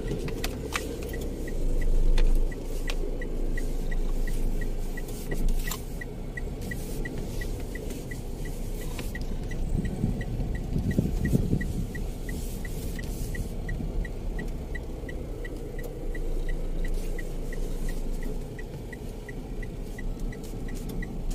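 Inside a car's cabin, the steady low rumble of the engine and tyres as the car drives slowly. Over it, a short high tick repeats evenly a little over twice a second, with a few scattered knocks.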